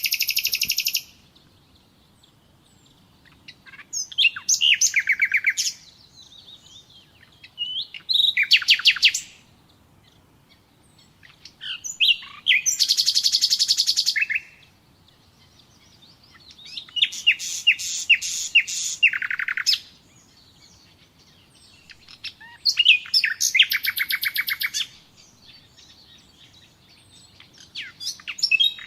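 Nightingale singing: a series of short phrases, each a rapid run of repeated notes and trills, with pauses of a few seconds between phrases.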